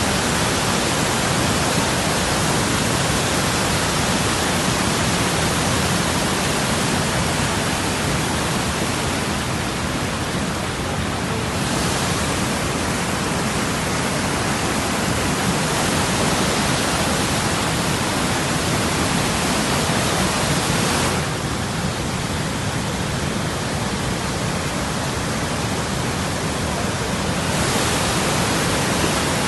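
Waterfall and rapids on a river, a steady loud rush of falling water. Its hiss turns duller and brighter a few times, about a third of the way in, about two-thirds in and near the end.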